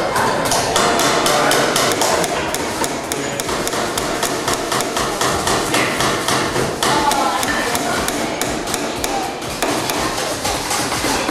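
Claw hammers driving nails through a pine base plate into a wooden toolbox held in a bench vise: quick, repeated sharp strikes, several a second, with workshop chatter behind.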